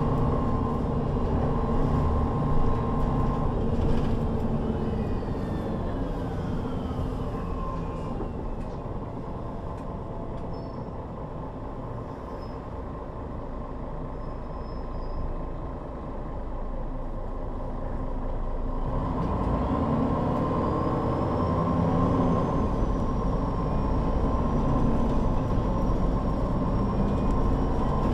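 MAN NL 263 city bus's diesel engine and drivetrain running in service. A falling whine comes in from about four seconds in and the running grows quieter through the middle. From about nineteen seconds in the engine gets louder again, with a rising whine over it.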